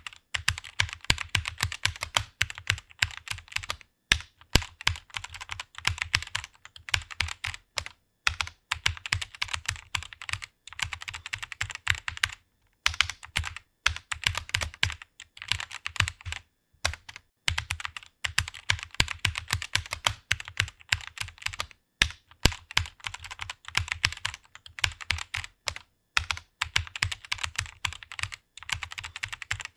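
Computer keyboard being typed on quickly and continuously, rapid key clicks in runs broken by short pauses every few seconds.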